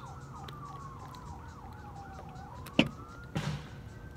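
Emergency vehicle siren: a slow wail falling and then rising in pitch, with a fast yelp over it for the first second or so. About two-thirds of the way through there is a sharp click, the loudest sound, followed by a brief hiss.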